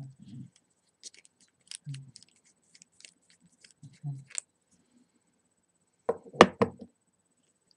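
Small metal parts of a rebuildable atomizer being handled: light clicks and ticks with a few soft thuds, then a loud cluster of knocks about six seconds in.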